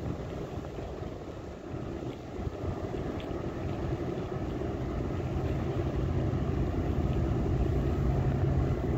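Ferry Evdokia's diesel engines running with a low steady hum, growing gradually louder as the ship comes closer.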